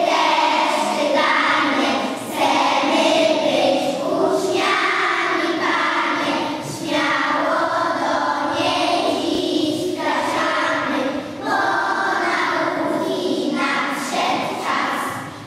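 A group of young children singing together in unison, with brief pauses between phrases.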